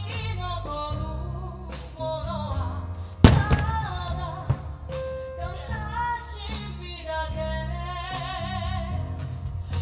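A song with a singing voice over bass notes plays throughout. Firework shells burst over it: one loud bang about three seconds in and a smaller one about a second later.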